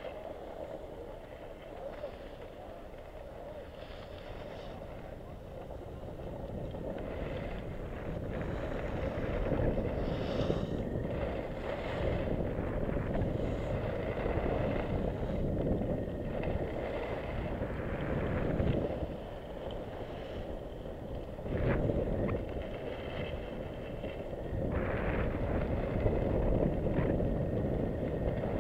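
Wind buffeting the microphone of a camera carried down a ski slope, mixed with the hiss and scrape of skis sliding over packed snow, swelling and fading as speed and turns change.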